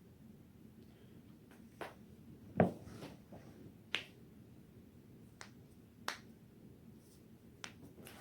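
A series of sharp cracks and pops from joints in the spine being cracked, about six spaced over the few seconds. The loudest is a deeper crack about two and a half seconds in.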